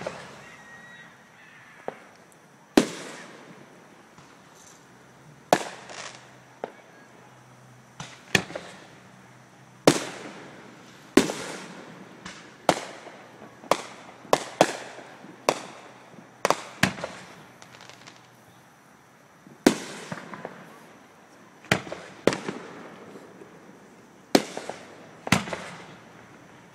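Aerial fireworks shells bursting in the sky, about two dozen sharp bangs at irregular intervals, each trailing off in an echo.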